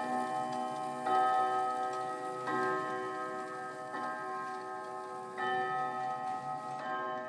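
Kieninger chime clock striking the hour: five even strokes about a second and a half apart, each left ringing into the next, over the clock's ticking.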